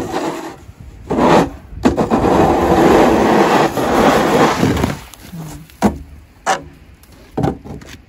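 Manplow snow pusher shovel's wide blade scraping along an asphalt driveway as it pushes snow, a loud rasping scrape that starts about a second in and lasts about four seconds, followed by three short knocks near the end.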